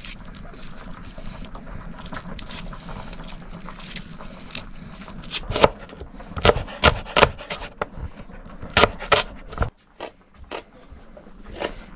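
A string of irregular knocks and scrapes over a steady low background noise. The knocks come thick and loud from about halfway in, and the background cuts out suddenly near the end.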